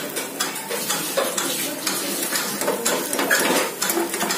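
A spatula scraping and tapping irregularly against a frying pan, working at the edges of an egg omelette, over a steady sizzle of the omelette frying.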